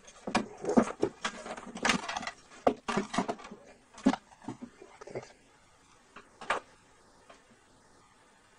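Clicks, knocks and short scrapes of a hand tool and fingers against the hard plastic parts inside an opened speaker cabinet. They come thick for about five seconds, then a single knock follows a second later.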